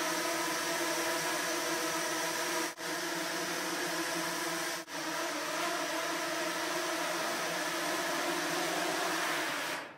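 A swarm of some twenty nano quadrotors flying in formation: the steady, dense whir of many small propellers together. The sound briefly drops out twice, a few seconds apart, and fades near the end.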